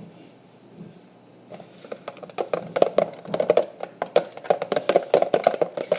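A utensil stirring a shaving-cream and soap mixture in a container, with rapid clicking and scraping against the container many times a second, starting about a second and a half in.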